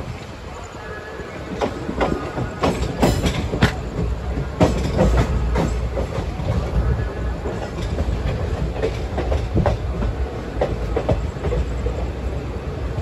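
Steel wheels of a moving passenger coach clattering in irregular clacks over rail joints and crossings, over a steady low rumble, heard through an open coach door as the express gathers speed out of the station.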